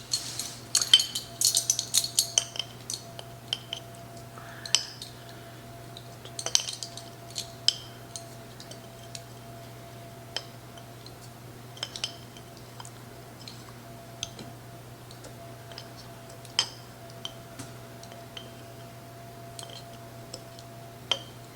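A tablespoon measure clinking and scraping against a spice bag and container as paprika is scooped out and tipped in. The clinks come thick and fast for the first few seconds, then as single light taps every second or so.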